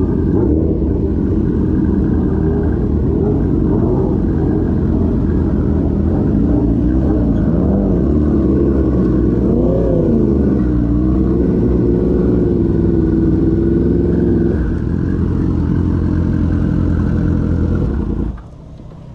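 Sport motorcycle engine heard from the rider's seat while riding slowly, its pitch rising and falling with the throttle. About fifteen seconds in it settles to a steady idle, and it cuts off shortly before the end as the engine is switched off after parking.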